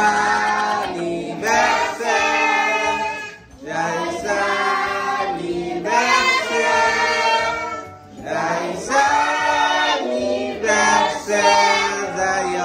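A group of children singing a birthday song together, unaccompanied, in phrases with short breaks between them.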